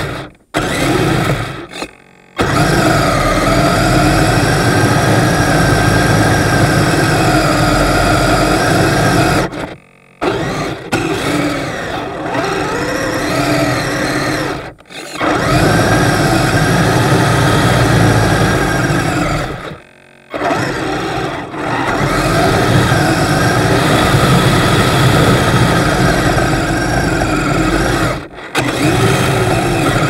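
Kyosho Blizzard RC snowcat with upgraded electric motors and metal tracks, driving and pushing snow with its plow blade: a steady motor whine over a rough running noise, cutting out briefly several times as it stops and starts again.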